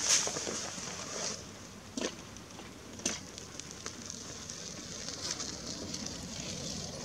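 Steady high-pitched hiss with faint crackling, and a few short soft knocks: the loudest right at the start, then one about two seconds in and another about three seconds in.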